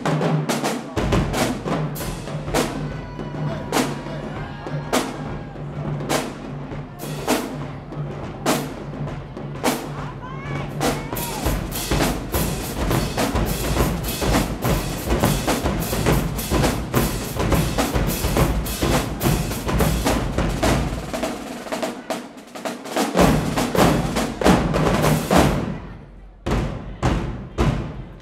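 High school marching drumline playing a fast, dense cadence on snare drums, bass drums and cymbals. Near the end it breaks off into a few separate hits.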